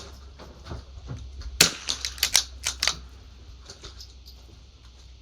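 Sharp cracks of .22 rimfire rifle shots. The loudest comes about one and a half seconds in, followed by a quick run of five more over the next second and a half, with fainter cracks and clicks around them.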